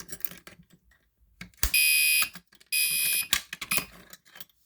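Residential smoke alarm giving two loud, high-pitched beeps of about half a second each, with clicks and knocks of handling before and after.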